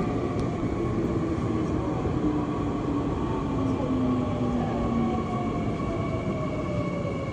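Seoul Subway Line 2 train running into a station, heard from inside the car: steady wheel-on-rail rumble with a motor whine that slowly drops in pitch as the train slows.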